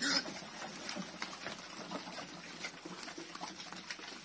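A group of village pigs eating wet, water-mixed feed from a tyre trough: irregular slurping, smacking and chewing sounds. There is a brief louder sound right at the start.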